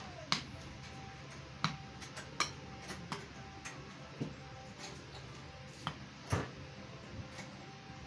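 A ball being knocked about with a cricket bat: a series of sharp, irregular knocks, about a dozen in all, the loudest about six and a half seconds in.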